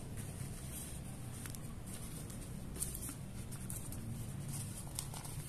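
Quiet handling of a workbook page and a felt-tip marker: a few small scattered clicks and rustles over a steady low hum.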